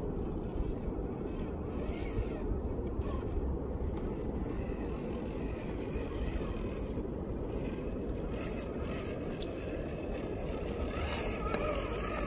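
Steady wind rumble on the microphone over the scale RC crawler truck (RC4WD Trailfinder 2 LWB) creeping across loose riverbank rocks in low gear. Near the end, as the truck comes close, its tires scrape and crunch over the stones.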